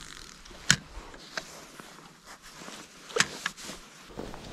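Handling noise at the water's edge: two sharp clicks, about a second in and again about three seconds in, each followed by a lighter click, over faint rustling.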